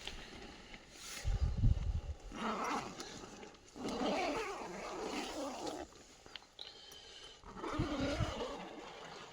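An animal's voice: three drawn-out, wavering calls, with a low rumble shortly before the first.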